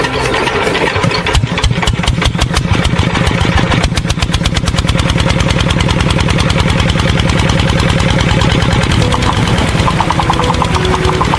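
Engine running, its firing uneven for the first few seconds and then settling into a steady, fast, even idle.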